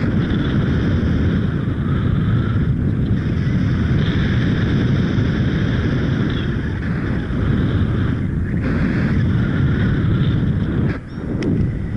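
Wind rushing over the microphone in free flight: a loud, steady buffeting roar that dips briefly near the end.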